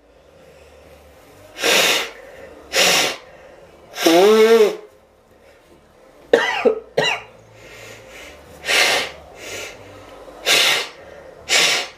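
A man blowing his congested, snot-filled nose hard into a tissue: a series of short forceful blasts with pauses between them, one honking about four seconds in.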